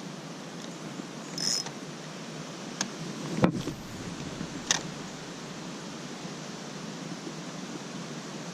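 Steady rush of flowing creek water, with a few short clicks and a louder knock about three and a half seconds in.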